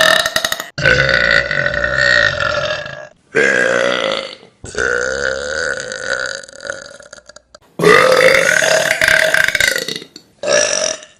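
Young women's long, loud burps, one after another: about six belches, several drawn out for two to three seconds each.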